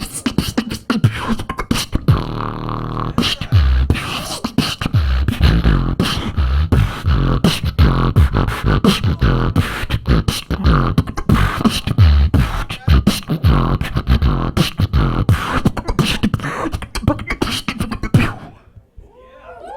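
Solo beatboxing: fast mouth-made kick drum, snare and hi-hat sounds over deep bass pulses, with a held low buzzing bass tone about two seconds in. The routine stops abruptly a little over a second before the end.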